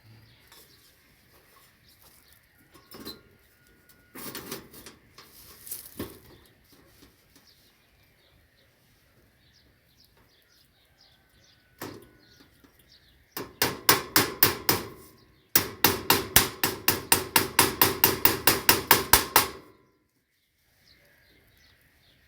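Hammer blows while repairing a fence: a few separate knocks, then two quick runs of rapid strikes, about five a second, the second run lasting about four seconds, as when a nail is driven home.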